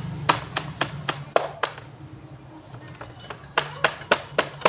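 Meat cleaver chopping raw pork shoulder on a wooden cutting board: a quick run of sharp knocks, about three a second, that stops for under two seconds midway and then picks up again.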